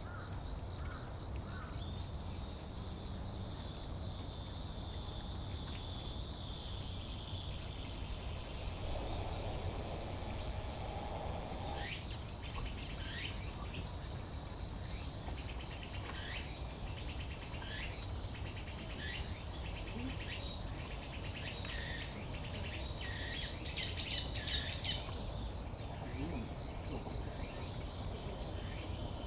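A cricket chirping steadily in rapid, even pulses at a high pitch. From about twelve seconds in, small birds give short, sharply falling calls again and again over it.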